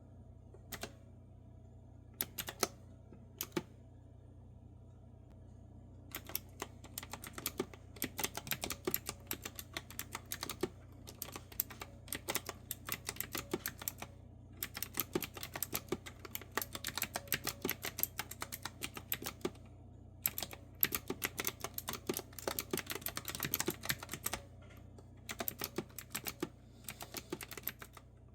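Clicky retro-style keyboard with round keycaps being typed on: a few single keystrokes, then from about six seconds in fast runs of crisp clicks broken by short pauses.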